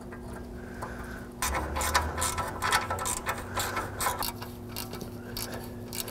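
Hand ratchet wrench clicking rapidly and unevenly as bolts are run in, starting about a second and a half in. The bolts are threading in freely.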